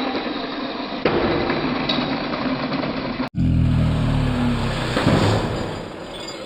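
Toy cars rolling and clattering along a wooden plank track; about halfway through, after an abrupt cut, a car engine revving sound that falls slightly in pitch.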